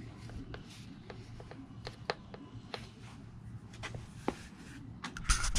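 Scattered light clicks and rustles of hands handling a small fitting tool and a rubber rail infill strip, with a short, louder burst of rustling noise near the end.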